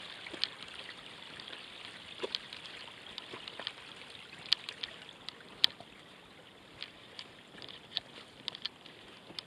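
Water trickling down a wet, stony slope, with scattered sharp clicks and knocks of footsteps and a pole on loose rocks. The loudest knock comes about halfway through.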